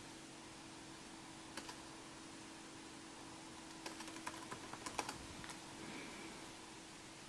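Typing on a laptop keyboard: a single key click about a second and a half in, then a quick run of key presses around four to five seconds in, over a faint steady hum.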